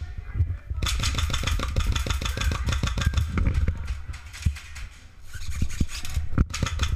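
Airsoft electric rifles firing rapid full-auto strings: a long run of fast clicking from about a second in to four seconds, and another near the end. The sound is muffled by a waterproof camera case, with heavy rubbing and handling rumble underneath.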